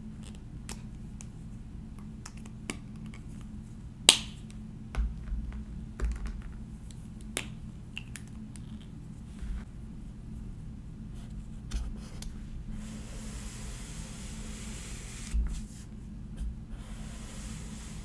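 Pens being handled on a desk: sharp clicks, the loudest about four seconds in, and a few soft knocks as they are capped and set down. Later, a light-blue Zebra Mildliner highlighter's felt tip rubs across notebook paper in long steady strokes, twice.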